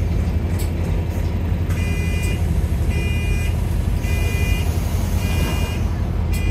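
Bus engine running with a steady low drone, heard from on board. An electronic warning beep on the bus sounds five times, about once a second, starting about two seconds in.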